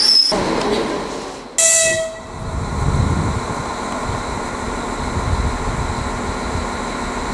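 EP2D electric multiple unit gives one short horn blast about one and a half seconds in, then starts off, a low rolling rumble rising and holding steady under a faint motor hum.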